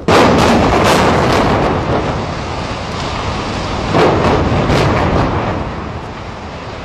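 Explosive demolition of high-rise concrete tower blocks: a volley of demolition charges fires in a rapid string of sharp cracks, followed by the deep rumble of the tower coming down. About four seconds in, a second volley of cracks goes off as the neighbouring tower is blown, and the collapse rumble slowly fades near the end.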